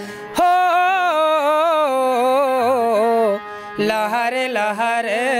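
A Chhattisgarhi patriotic song: one voice holds long, wavering notes, drawing out a line of the flag refrain, with a short break about three and a half seconds in.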